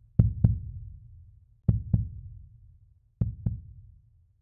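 Heartbeat sound effect: deep double thumps, lub-dub, three times about a second and a half apart, each pair quieter than the last.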